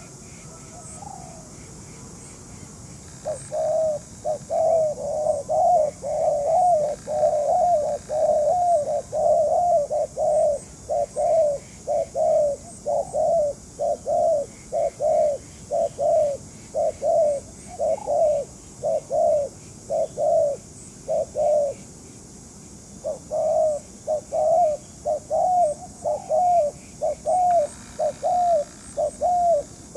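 Spotted dove giving a fast run of short, repeated coos, about two a second, in two long series with a brief break about two-thirds of the way through.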